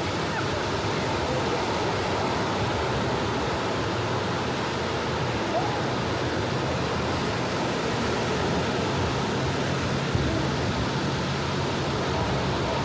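Gentle sea waves washing on a beach: a steady hiss of surf with no single breaker standing out.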